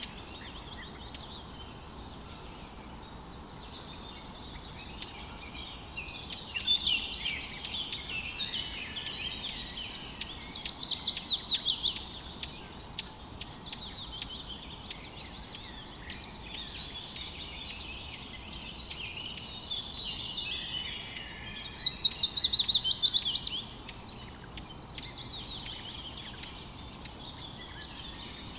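Songbirds singing together in a morning chorus, with many overlapping chirps and songs over a faint steady hiss. Twice, a loud trill falls in pitch over about two seconds, about ten seconds in and again past the twenty-second mark.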